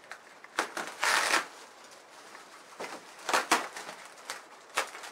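Clear plastic packaging film crinkling and rustling in several short bursts as it is pulled and peeled off by hand.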